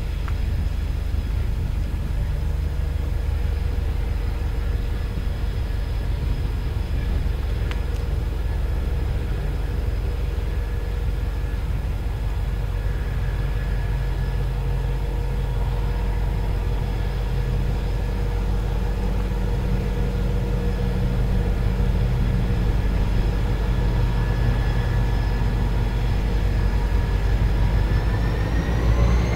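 Diesel-electric locomotives of a freight train (G, XR and BL classes) approaching, a steady low rumble with a steady engine whine over it. The sound grows a little louder over the last third, and its pitch rises just before the end.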